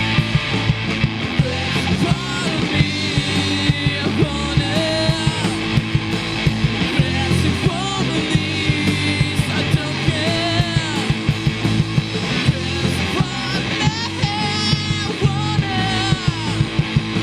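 A three-piece rock band playing live: electric guitar, bass and drums, with a singer's voice over them.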